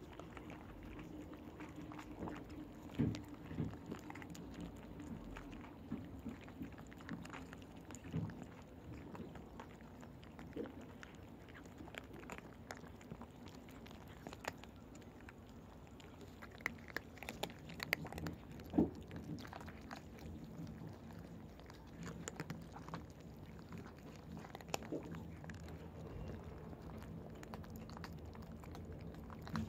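A cat eating dry kibble: irregular crunches and clicks of chewing, with a few louder bites around 3 seconds and 19 seconds in.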